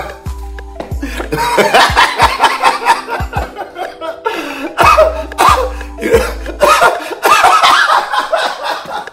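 A man laughing hard in repeated fits over background music with steady held notes and a low bass.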